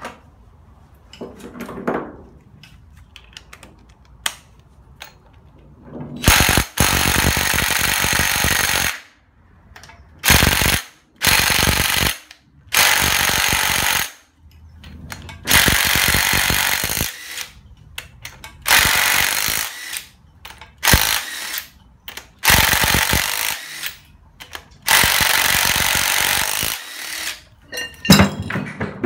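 Cordless impact wrench hammering as it undoes the flywheel bolts on a new Hyundai engine, in about nine loud bursts of one to three seconds with short pauses between, and a few light metal clinks before the first burst.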